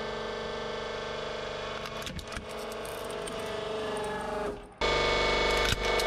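Hydraulic press pump running with a steady hum while a plastic computer mouse cracks and crunches under the ram about two seconds in. Near the end the pump hum cuts in suddenly louder.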